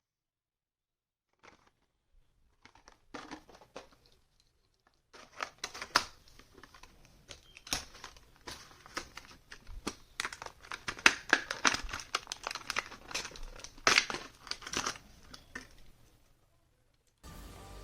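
Plastic-and-card toy-car packaging crinkling and tearing as it is opened by hand: a few scattered crackles at first, then a long run of dense crinkling and ripping that stops near the end.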